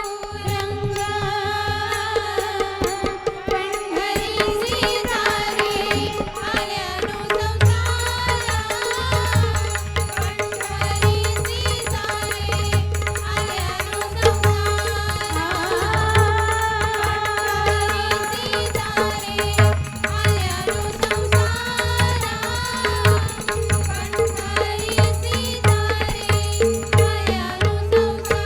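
A woman singing, accompanied by tabla and pakhawaj over a steady held drone. The drums keep a regular rhythm with frequent deep bass strokes beneath the voice.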